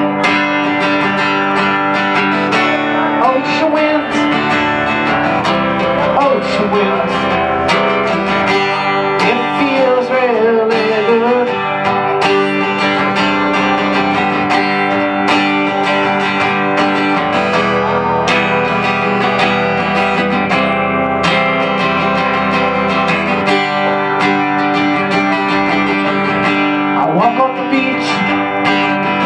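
Acoustic guitar strummed steadily in an instrumental passage of a live song, with a wavering melody line rising over it a few times.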